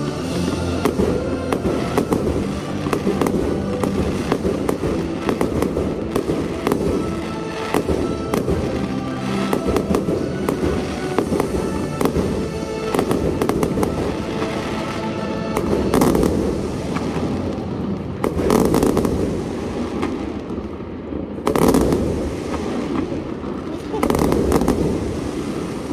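A fireworks display launching and bursting: a rapid, continuous stream of bangs and crackles, with several heavier booms in the second half, over music.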